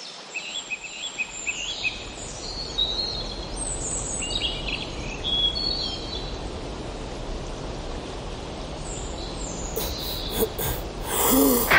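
Outdoor ambience: small birds chirping over a steady background hiss and low rumble. The chirps come mostly in the first half. Near the end a few sharp clicks and a short rising swell are heard.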